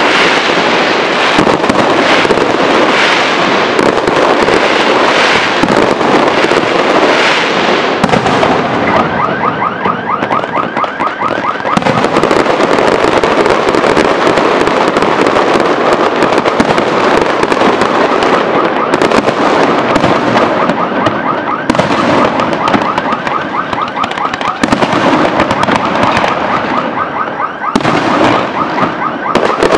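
Electrically fired fireworks display going off continuously: overlapping bursts, pops and crackling stars. Around ten seconds in, and again after about twenty seconds, a fast even rattle of sharp reports runs for a few seconds.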